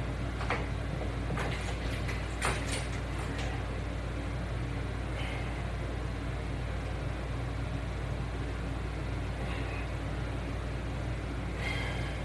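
Steady low background hum with a few light knocks in the first three seconds.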